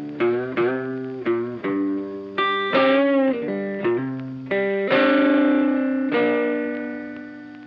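Background music: a guitar plucking a melody of single notes, some of them wavering in pitch, with a long note about five seconds in that rings on and slowly fades.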